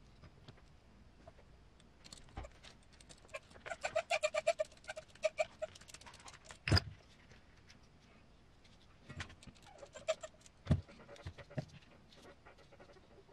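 Screws being driven with a hex driver into plastic RC kit parts, giving quick runs of squeaky creaking clicks as the threads cut in, twice. Between the runs a sharp knock of the parts is the loudest sound, with a smaller knock near the end.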